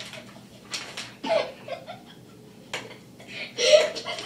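People laughing and giggling in short bursts, with the loudest burst of laughter near the end.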